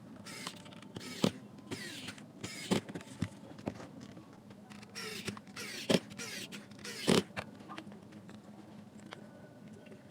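Irregular plastic clicks, knocks and scraping as the parts of a JBL Flip Bluetooth speaker are handled and fitted back together. The loudest clicks come about six and seven seconds in.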